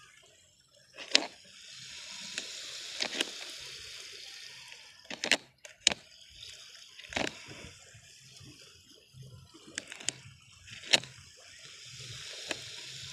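Plastic netting needle and nylon net twine handled close up: a hissing rustle that comes and goes, broken by about half a dozen sharp, irregular clicks.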